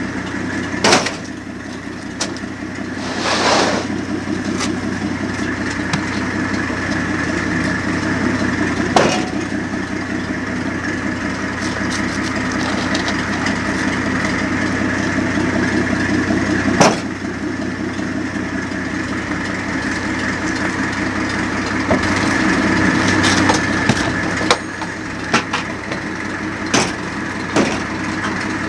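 A fishing boat's engine running steadily, with several sharp knocks and clatters on board.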